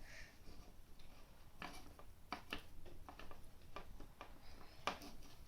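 Light, irregular clicks and taps from plastic Play-Doh mould pieces being handled while dough is pressed into a mould half.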